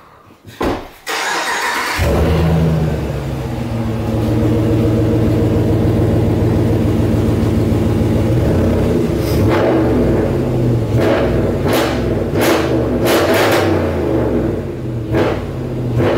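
Pickup truck engine starting about a second or two in, then running steadily. In the second half the engine note rises and falls as it is revved.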